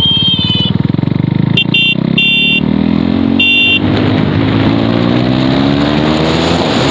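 Motorcycle engine running with an even pulsing beat, then climbing steadily in pitch as it accelerates, over wind and road noise. A high-pitched vehicle horn sounds at the start and then gives three more short honks within the first four seconds.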